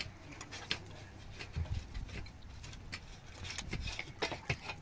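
Eggs being cracked into a small bowl: scattered light clicks and taps of shell on the bowl's rim.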